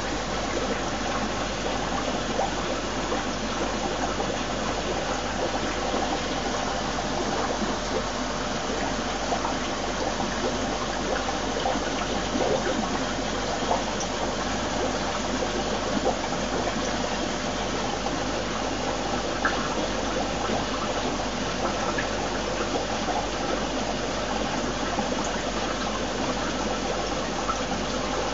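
Steady rush of aquarium water from filtration and aeration, with a low steady hum underneath.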